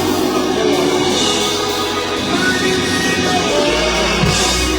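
Live church praise music: sustained instrumental chords with some singing, and a deep bass note comes in near the end.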